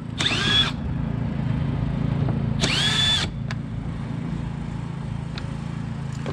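Cordless drill/driver run in two short bursts, its motor whining up in pitch and holding briefly each time, as it works fasteners on a truck's air-intake housing during an air filter change. A steady low hum sits underneath.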